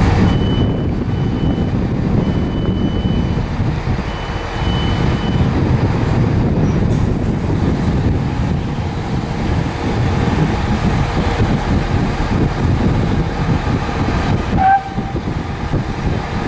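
Steady low rumble of a train, with three short high-pitched beeps in the first five seconds.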